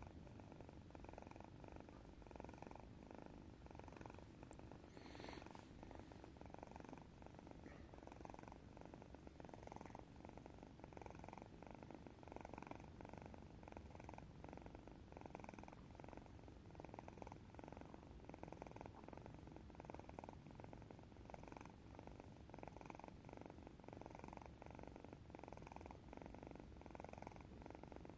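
Domestic cat snoring softly, a faint, rhythmic rasping with each breath.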